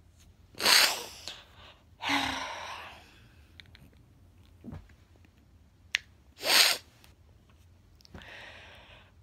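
A woman crying without words: two sharp, loud sniffs, about a second in and again just past six seconds, between shaky in-breaths, with a small click shortly before the second sniff.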